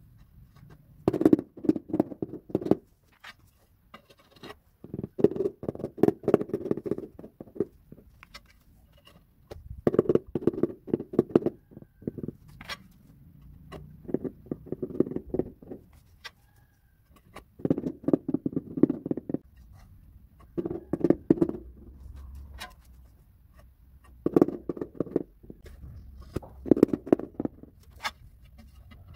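Rubber mallet tapping ceramic floor tiles down into combed tile adhesive to bed and level them. It comes as quick runs of taps, each a second or two long, repeated every three to four seconds.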